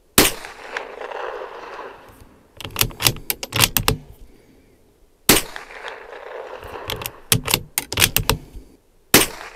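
Three shots from a Bergara B14R bolt-action .22 LR rifle, about four to five seconds apart, each sharp crack trailing off in a short echo. Between shots come the clicks of the bolt being worked to chamber the next round.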